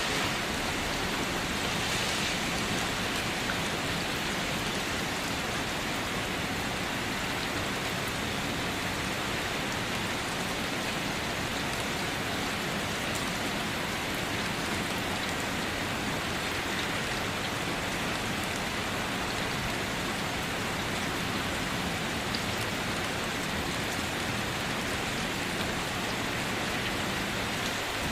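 Steady rain falling on a surface, an even hiss of many drops that holds at one level.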